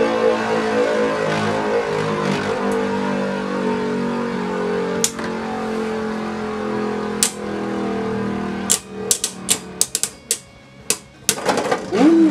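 Two Beyblade spinning tops, Gatling Dragon and Chain Kerbeus, whirring in a plastic stadium with a steady hum and a couple of sharp clacks as they hit each other. About three-quarters of the way in the hum stops and a rapid run of clacks follows as they clash.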